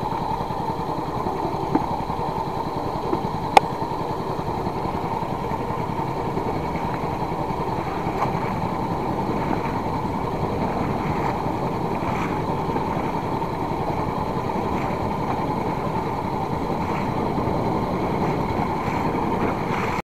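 Fishing boat's engine running steadily at a constant speed, with two sharp clicks in the first four seconds.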